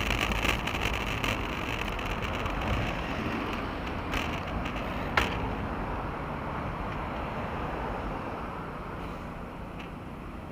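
Wind and road noise from a bicycle in motion, heard through a bicycle-mounted action camera. Two sharp clicks come about four and five seconds in, and the rush eases after about six seconds.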